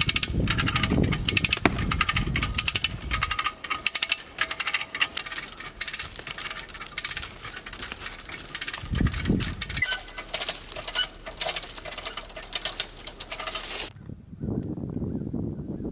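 Come-along ratchet being cranked, a fast run of metallic clicks, with heavy low thuds in the first few seconds and again about nine seconds in. The clicking stops about fourteen seconds in.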